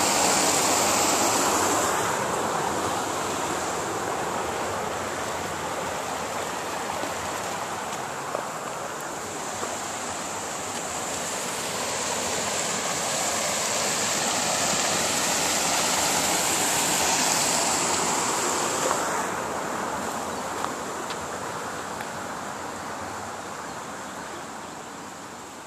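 Shallow river rushing over small cascades and rock ledges: a steady roar of falling water that swells in the middle and fades away near the end.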